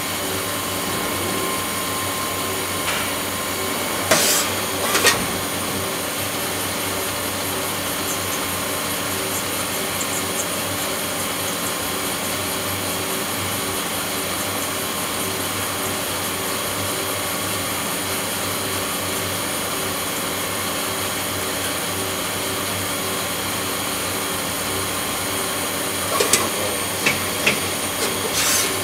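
Swiss-type CNC lathe running steadily while drilling and internally turning titanium TiBase implant parts, a constant machine hum with several fixed tones. A few sharp clicks or knocks come about four seconds in and again several times near the end.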